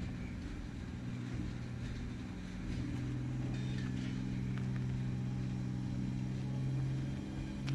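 VR Sr3 (Siemens Vectron) electric locomotive moving slowly past with a steady electric hum, getting louder about three seconds in. A short knock comes near the end.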